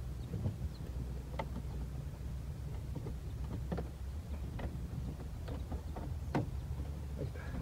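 Plastic steering-column trim being worked loose by hand, its retaining clips catching and giving several sharp clicks and knocks. A steady low rumble lies underneath.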